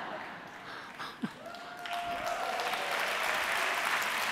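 Audience applauding, swelling about two seconds in and then holding steady.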